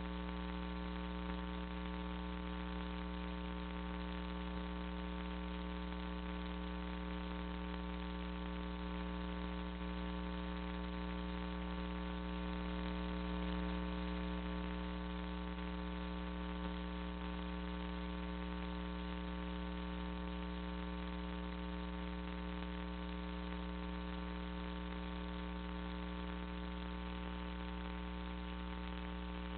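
Steady electrical mains hum with a stack of overtones over a background hiss, unchanging throughout.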